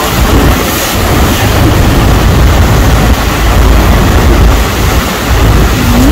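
Niagara Falls pouring down close by: a loud, steady rushing noise of falling and churning water, with wind rumbling on the microphone.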